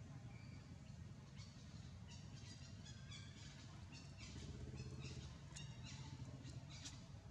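Faint, quick high chirps of small birds coming irregularly, over a steady low background rumble, with a brief low tone about four seconds in.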